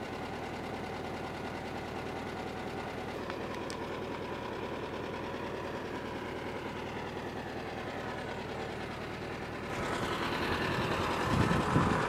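An air-cooled flat-four engine of a Volkswagen Type 2 Kombi idling steadily with a fast, even chatter. It grows louder about ten seconds in, with a few low thumps near the end.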